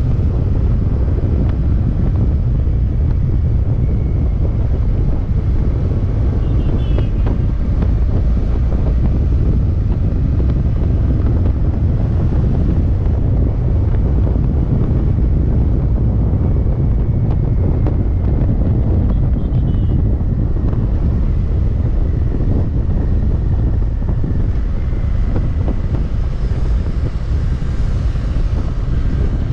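Wind buffeting the camera microphone over the steady running of a Royal Enfield Interceptor 650's parallel-twin engine at cruising speed, with a constant low rumble of wind and road.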